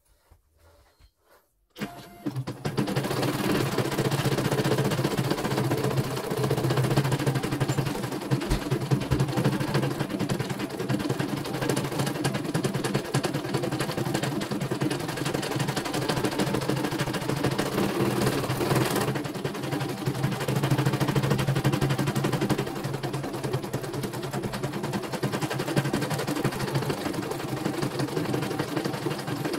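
CNY E900 computerized embroidery machine starting up about two seconds in, then stitching steadily: a fast, even rattle of needle strokes as the hoop carriage moves the fabric. It is test-stitching a design after being fully dismantled and repaired.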